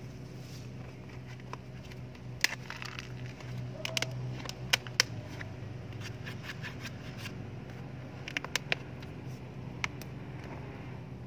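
A stiff plastic container crackling and clicking as hands pull a potted plant's root ball out of it and bend the plastic, with about half a dozen sharp clicks in two bunches. A steady low hum runs underneath.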